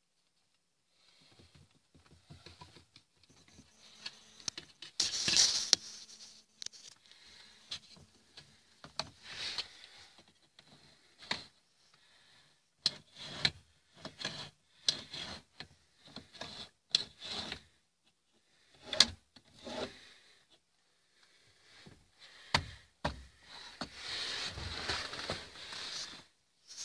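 Irregular rubbing and scraping with scattered sharp clicks: hands working among the pedal-box parts under a car's dashboard, with the hand-held camera brushing and knocking as it moves. A longer stretch of rubbing comes near the end.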